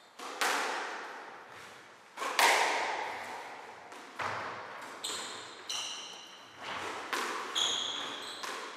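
Squash rally in a reverberant glass-backed court: a run of sharp ball hits off rackets and walls, roughly one a second, each ringing on in the hall, the loudest about two and a half seconds in. From about halfway, short high squeaks of court shoes on the wooden floor come between the hits.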